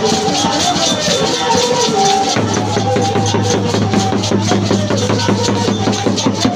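Church praise music: drums and shakers keep a fast, busy rhythm under a wavering melody, and a low bass note comes in and holds from about two seconds in.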